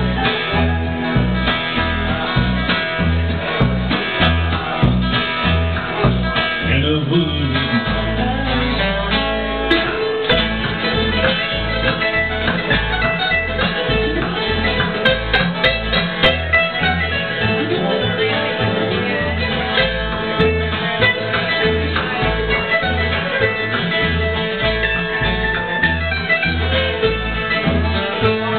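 Bluegrass band playing live: mandolin and acoustic guitar picking over an upright bass that plucks a steady beat of about two notes a second, with one long held low note about a third of the way in.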